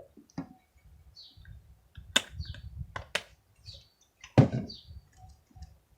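Scattered clicks and knocks of plastic containers being handled while activator is added to slime, the loudest knock about four and a half seconds in, with soft rustling between them. Small birds chirp briefly and repeatedly in the background.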